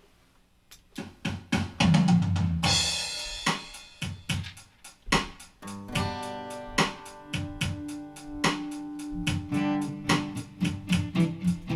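Instrumental intro of a song: a drum beat with kick and snare comes in about a second in, and held pitched instrument notes join over the beat about halfway through.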